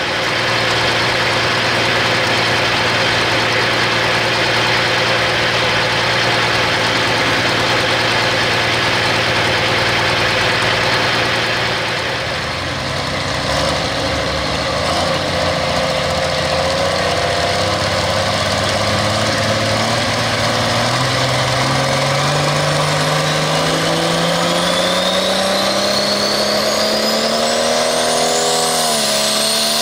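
Light limited super stock pulling tractor's turbocharged diesel engine running steadily while hooked to the sled, then slowly building revs from about halfway through. Over the last few seconds a high turbo whine climbs in pitch as the engine spools up for the pull.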